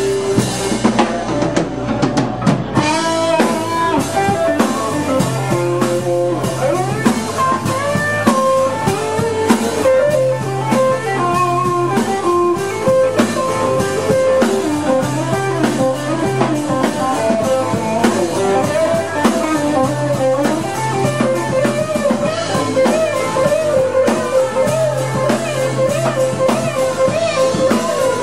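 Live band playing an instrumental passage: a Telecaster-style electric guitar plays a lead line of notes that bend and waver, over a drum kit and bass.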